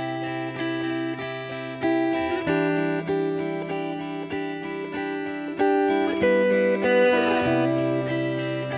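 Background music: a guitar picking notes in a steady rhythm, changing chords about two and a half seconds in and again around six seconds.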